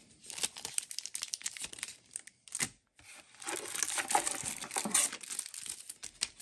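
Plastic wrapping on packs of trading-card sleeves crinkling as they are handled, in two irregular stretches, with one sharp tap in the short lull between them.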